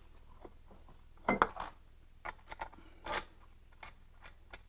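Irregular light metallic clicks, taps and rubbing from hands fitting the drive belt onto a snowmobile's secondary clutch, with the loudest knocks about a second and a half in and again about three seconds in.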